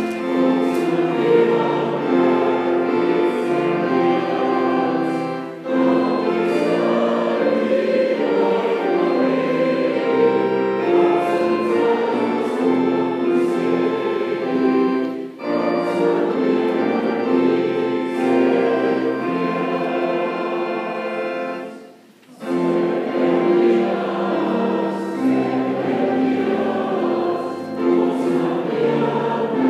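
A choir singing held chords in long phrases, with short breaks between phrases about 5 and 15 seconds in and a brief full pause about 22 seconds in.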